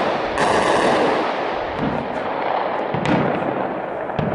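Gunfire in street fighting across a city: a loud crack about half a second in that rings out and slowly fades, then scattered single shots and another sharp report about three seconds in.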